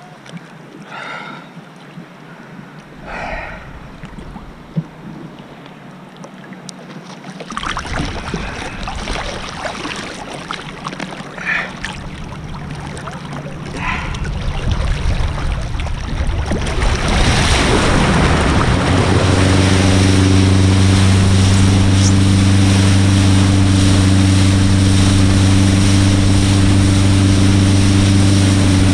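Lake water lapping and splashing around a wakeboarder floating with his board, then the boat pulls him up about fourteen seconds in. The water then rushes loudly and steadily under the board, with wind on the microphone and a steady low hum as the boat tows him along.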